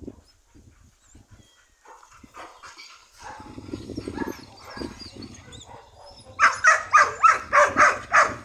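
A dog barking in a fast run of about eight sharp barks, about four a second, starting some six seconds in, after quieter low sounds.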